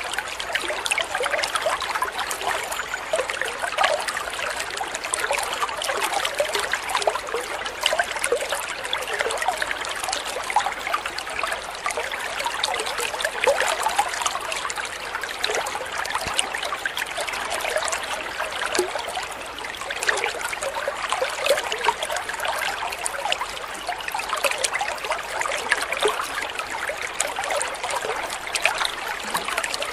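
Water trickling and splashing steadily into a koi pond from a small spout at its edge: an even, unbroken patter of many small splashes, light and without any deep rumble.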